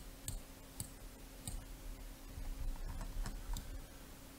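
Scattered light clicks of a computer mouse, about a dozen at irregular spacing, over a faint steady hum.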